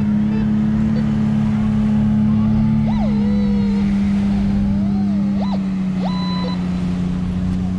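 Metal detector sounding short target tones that rise and fall in pitch several times over a steady low hum, as the coil passes over a buried coin.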